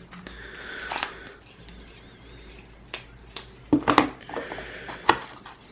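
Handling of a phone box's paper and cardboard contents: a soft rustle about a second in, then scattered light clicks and taps, bunched near the end.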